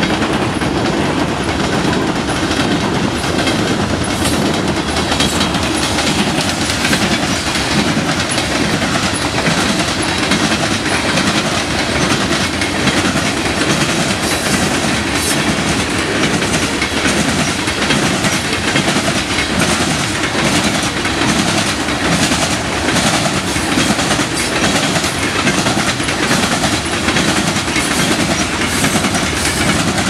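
Covered hopper cars of a freight grain train rolling past, a steady rumble and rattle with wheels clicking over the rails, and wind buffeting the microphone.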